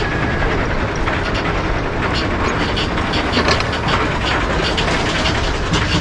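Roller coaster train climbing a chain lift hill, the anti-rollback ratchet clicking at intervals over the steady rumble of the lift chain, with wind on the microphone.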